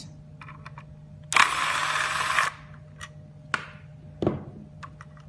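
Power screwdriver loosening the motherboard's retaining screw: one loud, hissy whirring burst lasting about a second, with light clicks before it and two knocks from handling the board near the end.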